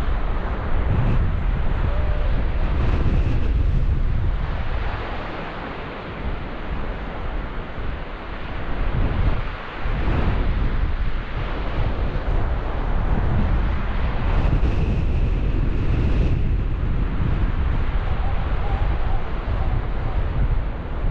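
Strong wind buffeting the microphone, a heavy low rumble, over rough surf breaking on the shore. The gusts ease for a few seconds near the middle, then pick up again.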